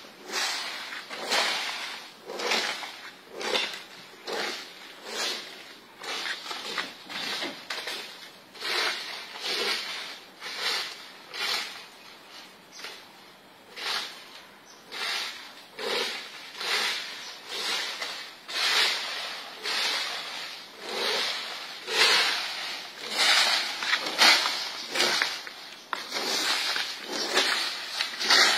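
Wire fan rake scraping over dirt and dry leaves in repeated strokes, about one every 0.7 seconds, getting louder near the end.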